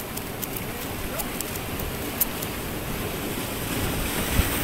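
Surf washing against a rocky breakwater at a river mouth, a steady rushing noise with wind buffeting the microphone. A few light clicks sound in the first half and a dull bump near the end.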